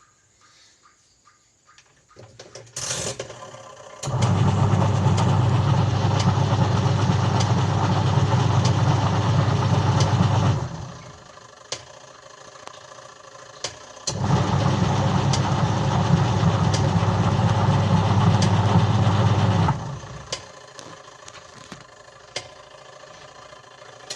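Top-loading washing machine's motor driving the newly fitted pulsator in two spells of about six seconds with a pause between, the back-and-forth agitation of a wash cycle, with light clicks over the hum.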